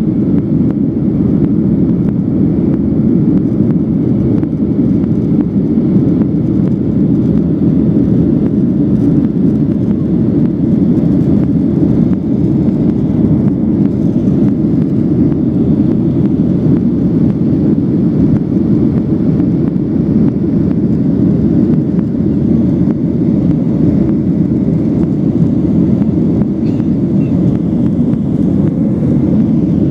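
Steady, even drone of a Boeing 737-900's CFM56 jet engines and rushing air, heard from inside the passenger cabin, typical of the climb after takeoff.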